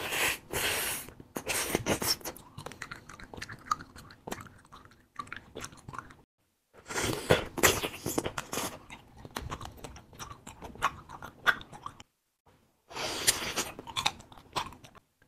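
Biting and chewing of a fruit-filled wax candy: irregular mouth sounds full of small clicks, stopping briefly twice.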